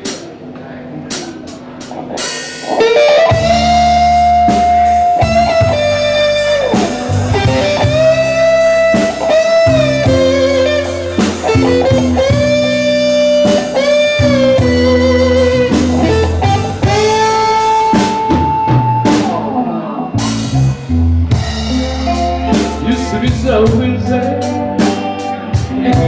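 Live blues band playing: a Stratocaster-style electric guitar takes the lead with long sustained notes that bend up and down, over bass and a drum kit. The full band comes in about three seconds in after a few sparse drum and cymbal hits, and a cymbal crash marks a change partway through.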